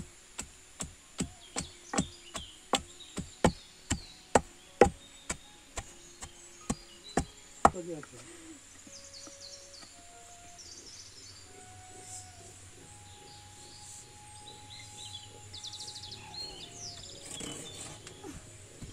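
Long wooden pestle pounding dried sesame seeds in a wooden mortar: sharp dull thuds about two a second, stopping about eight seconds in. Faint bird calls and insects follow.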